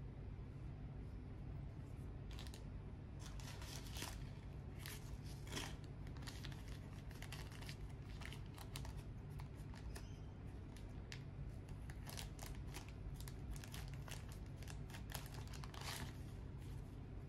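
Thin white paper wrapping being handled and unfolded by nitrile-gloved hands, rustling and crinkling in a long series of short crackles that start a couple of seconds in. A steady low hum runs underneath.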